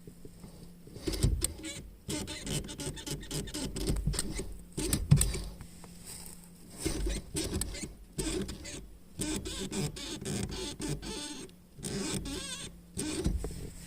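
Nissan Leaf brake pedal pressed and released over and over, squeaking with each stroke. The squeak comes from the pedal's limit switches.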